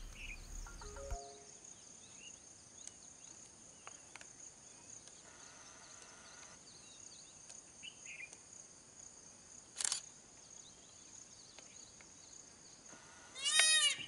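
Indian peafowl calling near the end: a quick series of loud rising-and-falling calls, about two a second, over a steady high-pitched drone and a few faint bird chirps. A brief loud rasp comes about ten seconds in.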